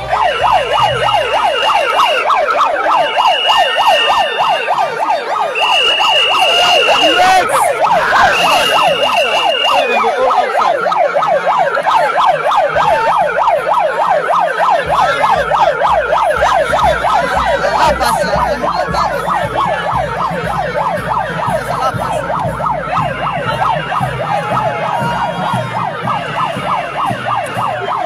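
Handheld megaphone's built-in siren sounding continuously in a fast rising-and-falling warble.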